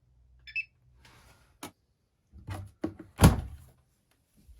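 Front-loading washing machine: a short electronic beep, then a few clicks and a loud thunk as its door is unlatched and opened.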